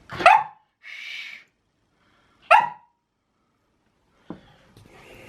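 Pet dog barking twice in play, two sharp barks about two and a half seconds apart, with a softer hissy sound between them.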